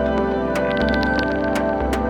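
Background music: held ambient, organ-like chords over a bass note that changes about once a second, with light ticking percussion.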